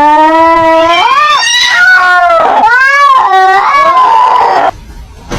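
A cat giving one long, loud yowl that wavers up and down in pitch for over four seconds, then stops.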